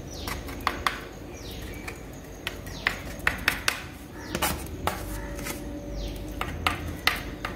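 A small tool scraping and tapping as it spreads a wet white cement and Fevicol paste over a crack in a black Cuddapah stone sink. It makes irregular sharp clicks and a few short scraping strokes.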